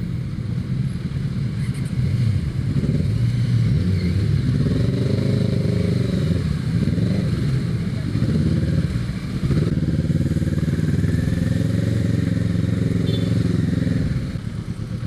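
Motorcycle engine running at low speed, its revs rising and falling. It gets louder about two seconds in and drops back near the end.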